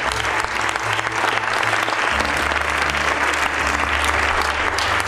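Audience applauding, with music and low bass notes underneath.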